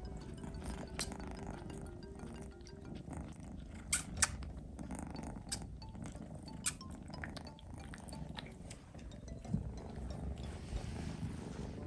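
A kitten purring, a steady low rumble, with a few sharp clicks about four to seven seconds in.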